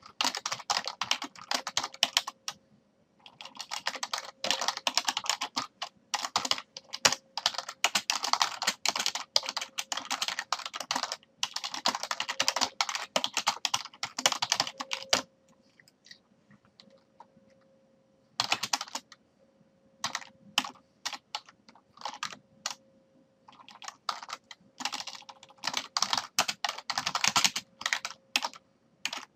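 Computer keyboard typed on in fast runs of keystrokes, pausing for about three seconds around the middle before single keystrokes and shorter runs resume. A faint steady hum runs underneath.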